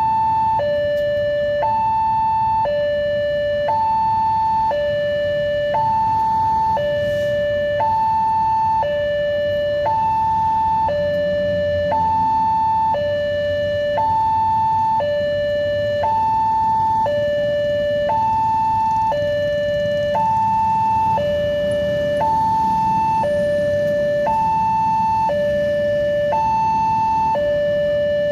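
Railway level-crossing warning alarm sounding: an electronic two-tone signal alternating steadily between a high and a low tone, each held about a second. It signals that the barrier is down and a train is approaching.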